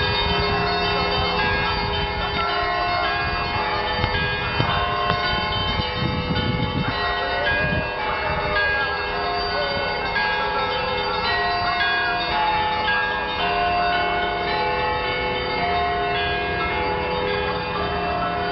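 Russian Orthodox cathedral bells ringing: several bells of different pitches sounding together in a continuous peal.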